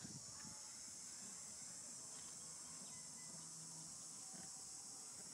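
Faint, steady high-pitched chorus of insects, unchanging throughout.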